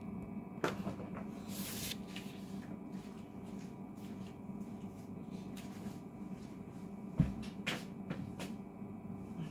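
Knocks, a short rustle and a sharp thump about seven seconds in as someone moves about a small room, over a low steady hum.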